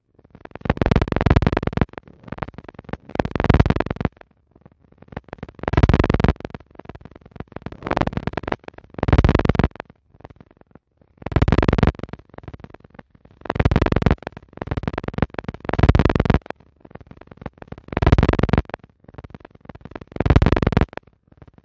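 Synthesizer music playing, in loud phrases that swell and drop back about every two seconds.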